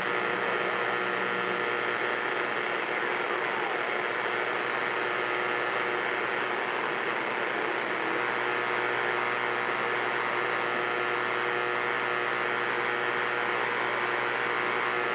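CB radio speaker hissing with steady static and band noise between transmissions, with a few faint steady whistling tones on the channel.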